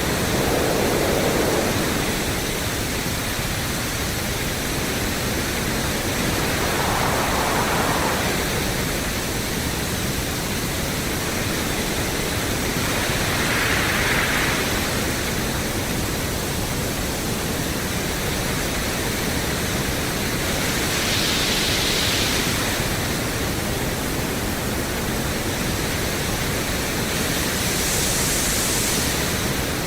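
Pink noise played through a Yamaha EQ-70 analog graphic equalizer, a steady hiss whose colour changes as one band after another is boosted: a brighter hump in the hiss steps up in pitch five times, about every seven seconds, from a low-mid rush to a high sizzle near the end.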